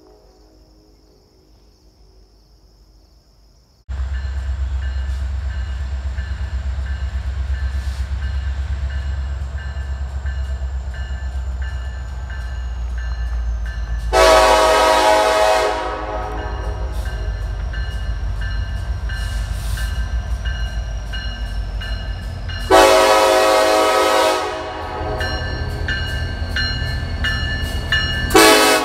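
Diesel locomotive running with a steady low engine rumble that starts abruptly about four seconds in. Over it the multi-tone air horn sounds two long blasts and then a short one near the end, the opening of the long-long-short-long grade-crossing signal.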